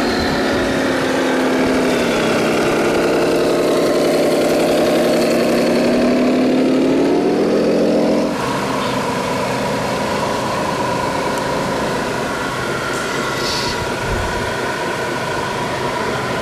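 Sound module of a radio-controlled Scania tractor unit playing a diesel truck engine note, running and revving: the note dips about two seconds in, climbs again near seven seconds, and changes abruptly a little after eight seconds to a steadier idle-like note.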